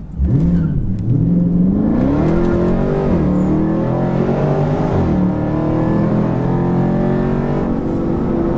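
Dodge Charger's V6 engine, fitted with a Flowmaster Super 44 exhaust, accelerating. Its pitch climbs to an upshift about three seconds in, then it pulls on at a steady, lower pitch.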